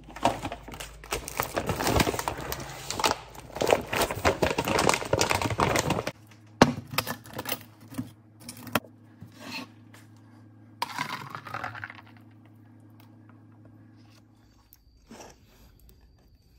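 Countertop blender running with a dense, rattly grind for about six seconds, then cutting off abruptly. After it come a few scattered clicks and knocks and a faint steady low hum.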